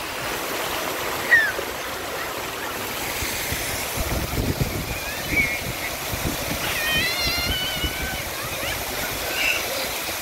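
Splash-pad fountain jets spraying and water splashing onto paving, a steady hiss. Children's high voices carry over it, with a short squeal about a second in and a long wavering cry around seven seconds in.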